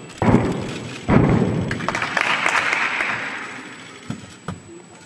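A gymnast's feet landing a tumbling pass on a sprung floor: two heavy thuds about a second apart, followed by a burst of audience applause that fades.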